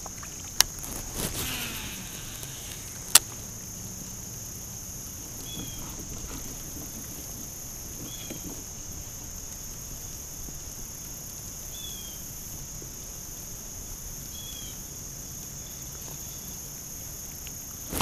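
Steady high-pitched chorus of crickets, with two sharp clicks in the first few seconds and a few faint, short chirps scattered through.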